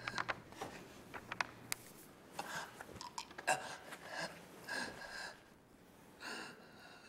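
Faint rustling and handling of a cloth-wrapped package as it is unwrapped by hand, in short scattered bursts with a few soft clicks.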